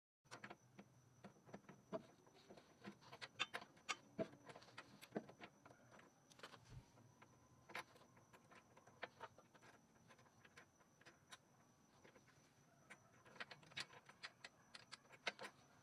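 Faint, irregular sharp clicks and taps of hand tools and metal hardware being handled, in scattered clusters.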